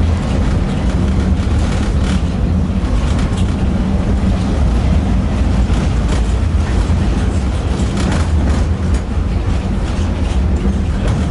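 Tatra T6B5SU tram in motion, heard from aboard: a steady, loud low rumble of the wheels and running gear on the rails.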